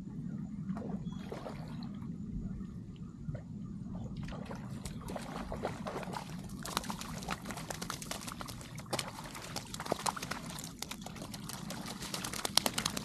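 Water splashing and trickling in the shallows, starting about four seconds in as a crackle of irregular splashes: a hooked small bluefish (snapper blue) thrashing at the surface, then feet stepping into the water near the end.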